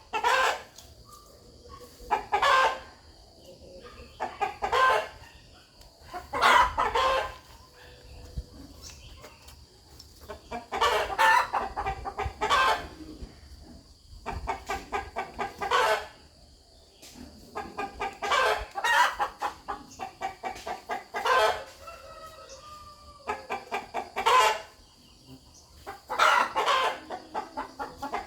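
Rooster clucking in quick runs of sharp clucks, a new run every two to three seconds.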